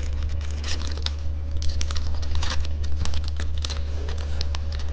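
Plastic candy wrapper crinkling and rustling in irregular crackles as a roll candy is handled and rolled up, over a steady low hum.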